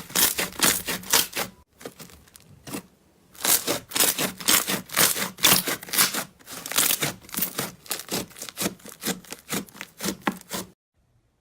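Slime being squeezed and worked by hand: a dense run of crackling clicks and pops in quick clusters, with a short lull early on, cutting off suddenly near the end.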